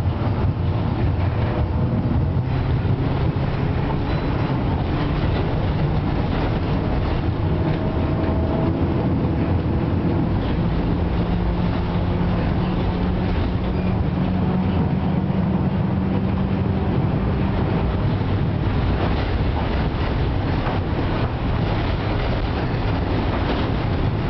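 FVV CSM-4 articulated tram heard from inside the passenger saloon while under way: a steady running rumble of the wheels and running gear on the track, with a faint hum that shifts in pitch now and then.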